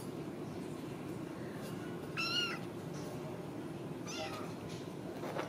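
Young Ragdoll kittens meowing: one loud, high meow about two seconds in, a fainter one about four seconds in and a short one near the end, over a steady low hum.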